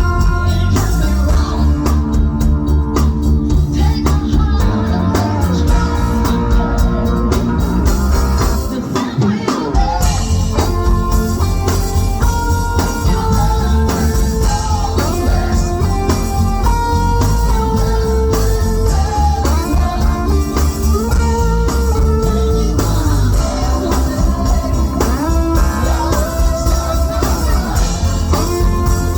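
A band playing an 80s-style rock song, with electric guitar, bass, drums and singing; the bass drops out briefly about nine seconds in.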